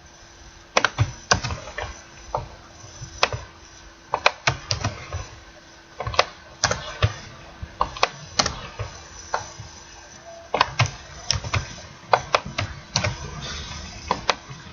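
Computer keyboard typing: irregular clicks of keystrokes, some in quick runs, over a faint steady hum.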